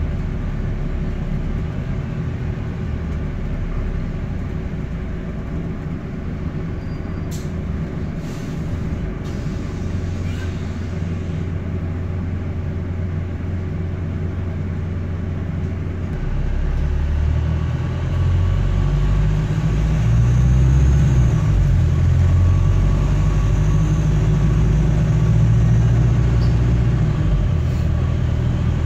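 Diesel engine and exhaust of a Wright StreetDeck double-decker bus under way, heard from the upper deck: a steady low rumble with a blowing exhaust, meaning an exhaust leak. The rumble grows louder and rougher a little past halfway as the bus pulls harder.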